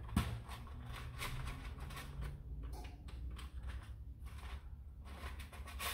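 Foam Nerf Rival rounds being pushed one by one into the Khaos's plastic magazine: irregular light clicks and plastic taps, a sharper click just after the start, over a low hum.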